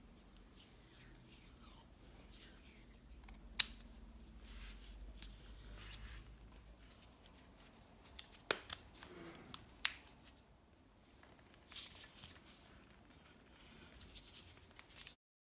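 Bicycle handlebar tape being stretched and wrapped by hand around a drop handlebar and brake lever hood, a soft rustling with a few sharp clicks, the loudest about three and a half seconds in. Near the end a bar-end plug is pushed into the end of the bar.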